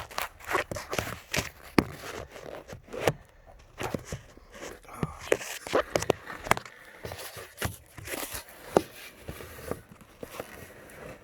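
Scattered, irregular clicks, taps and scuffs of handling and movement as a handheld camera is moved about.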